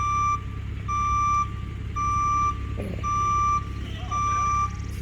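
Vehicle backup alarm beeping steadily, one pitched beep a little more often than once a second, over the low running of a diesel work vehicle's engine.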